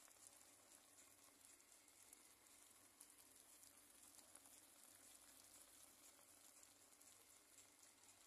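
Very faint simmering of a fish tagine in an uncovered clay tagine, the sauce softly sizzling with many tiny crackles.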